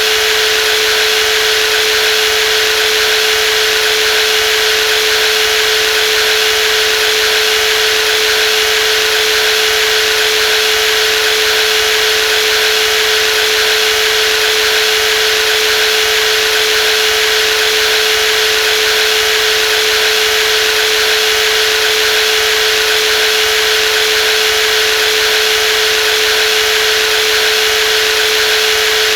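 Brushless jigsaw running continuously at constant speed: a steady mid-pitched whine over a dense rushing hiss, with no change in speed or load.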